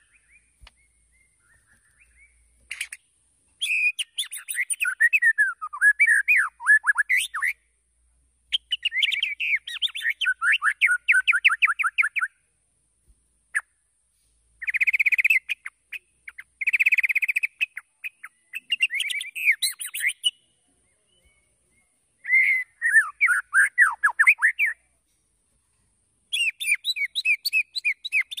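White-rumped shama singing in five bursts of rapid, varied song: quick chattering runs of sweeping notes mixed with clear whistles. Each burst lasts a few seconds, with pauses of one to two seconds between them.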